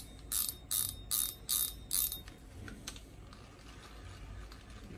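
Size-6000 fishing reel's mechanism ratcheting as it is worked by hand: five short clicking bursts about 0.4 s apart in the first two seconds, then faint handling noise.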